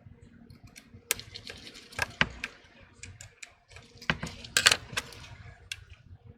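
Small hand tools for phone repair clicking and clinking against the phone and the work surface: irregular sharp clicks, with a louder cluster about four and a half seconds in.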